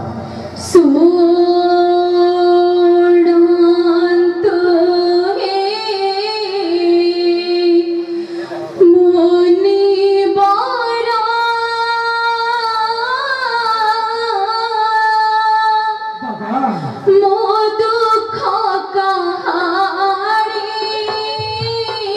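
A high voice singing long, drawn-out notes of an Odia jatra song, with a musical accompaniment, pausing briefly between phrases.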